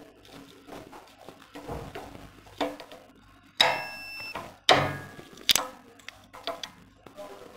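Sharp metal clicks and clanks of locking pliers being handled and set on a generator bolt, about one a second from midway, one strike ringing briefly.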